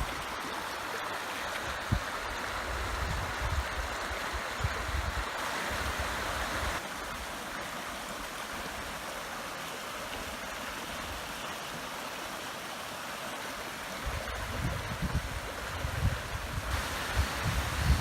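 Steady rush of water from a waterfall, with irregular low thumps on the microphone in the first seven seconds and again near the end. The rush drops a little in level about seven seconds in.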